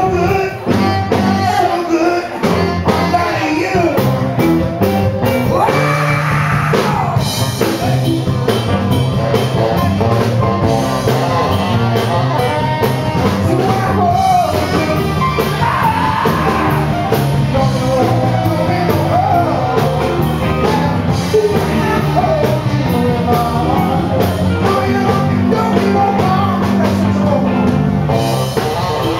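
Live funk-soul band playing: drum kit, electric guitar, bass guitar and saxophone, with a male singer on vocals.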